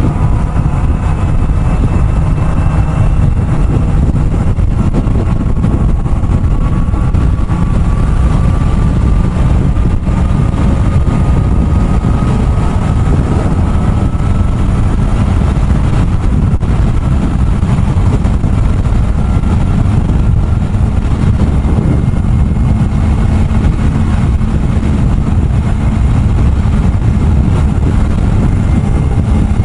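Kawasaki ZX-4RR inline-four engine running at highway speed under heavy wind and road rumble. Its whine climbs slowly in pitch through the first half, then holds steady.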